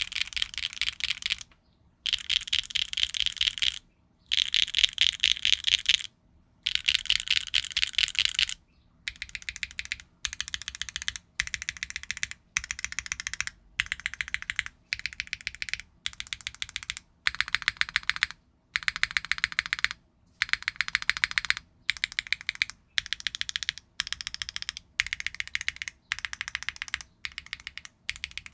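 HMX Moonlit Bleu linear switches typed on in a Neo 65 keyboard with a carbon fiber plate, no foam and GMK keycaps, giving bright, clacky keystrokes. For about the first nine seconds they come in fast runs of about two seconds each, then in short bursts of a few strokes about once a second.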